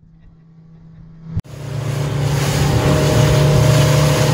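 A fishing boat's engine drones low and steady, heard from inside the cabin. About a second and a half in, this gives way abruptly to a loud rush of water and wind over a steady engine drone as the boat runs at speed.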